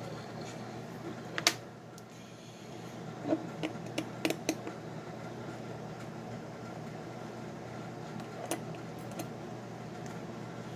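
A handful of light, separate clicks and taps of small metal parts and tools being handled, over a steady low hum.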